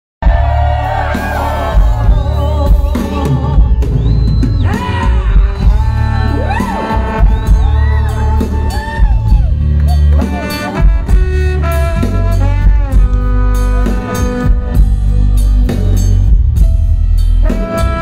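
Live band amplified through a concert sound system: a woman sings over brass, keyboard, bass guitar and drums, with a heavy bass line.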